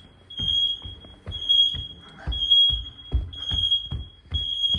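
Smoke alarms sounding during a test: a high-pitched beep repeating about once a second. Footsteps thump on the stairs underneath.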